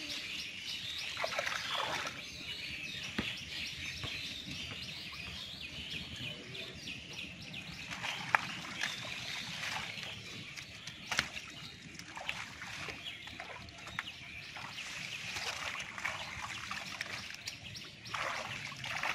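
Shallow muddy water splashing and sloshing as hands and legs move through it and pull out water plants, with scattered sharp clicks, the loudest a little over eight seconds in. Birds chirp in the background.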